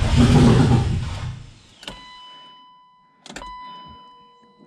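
Turbocharged BMW M52 straight-six being cranked over by the starter, a loud pulsing run that stops about a second and a half in without the engine settling into a run. A steady high-pitched whine follows, with a few sharp clicks.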